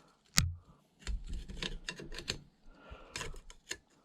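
Small tools clicking and scraping against the valve spring and cylinder head as a magnet is worked down to fish out a valve keeper; a sharp metallic click about half a second in is the loudest, followed by scattered lighter clicks and scrapes.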